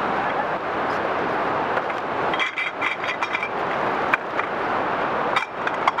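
Steady outdoor rushing noise, with scattered light clicks and small metallic ticks in the second half.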